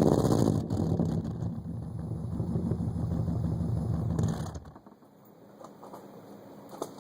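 2005 Subaru Forester's flat-four boxer engine heard at the MagnaFlow exhaust tips, dropping from a rev to a steady low idle rumble. The engine cuts off suddenly about two-thirds of the way through, leaving only faint clicks.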